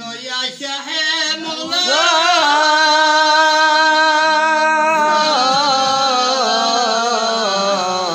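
A man's voice singing a devotional qasida, unaccompanied. About two seconds in he slides up into a long held note, then falls away in a wavering, ornamented line.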